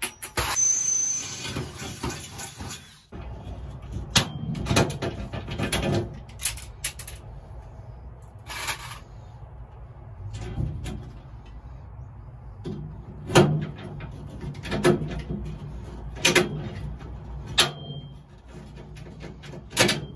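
Hand pop-rivet tool fastening an aluminum bed frame: sharp metal clicks and snaps as the handles are squeezed and the rivets set, scattered unevenly. It opens with about three seconds of steady whirring that stops abruptly.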